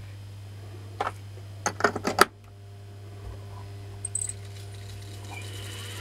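A quick run of sharp metallic clicks and clatters, the loudest about two seconds in, from metal parts and leads being handled on a workbench. A steady low electrical hum runs underneath.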